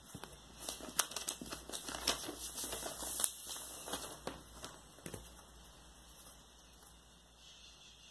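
Handling noise of a 12-inch vinyl LP being turned over in the hands: a run of light rubs, brushes and clicks of fingers on the disc for about five seconds, then it goes quiet.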